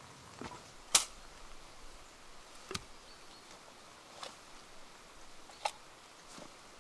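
Scattered water drops falling from rain-soaked trees, landing as about six sharp single taps a second or so apart over a faint hiss; the loudest comes about a second in.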